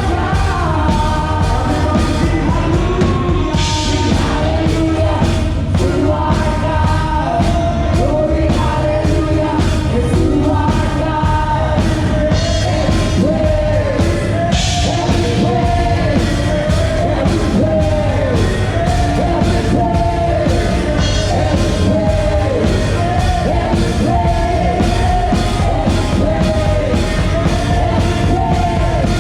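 Live rock-style worship music: a band with drums keeping a steady beat under loud group singing, with cymbal crashes twice.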